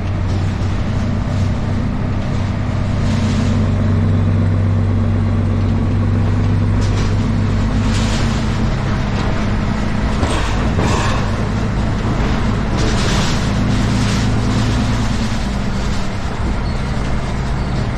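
Heavy truck's diesel engine running at a steady drone while driving, with road and wind noise that swells a few times.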